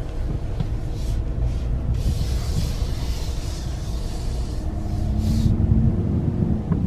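Inside the cab of a lifted 2020 Chevy Silverado 1500 moving off at low speed: a steady low engine and road rumble. The engine note rises about five seconds in as the truck picks up speed, and a soft hiss sits in the middle few seconds.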